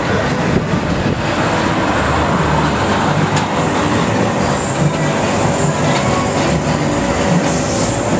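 Mondial Turbine fairground ride in motion, heard from on board: a loud, steady mechanical rumble and rattle with a rushing noise over it.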